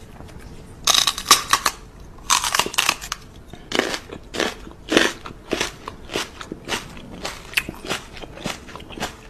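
A pet chewing something crunchy, with loud crunches about two a second.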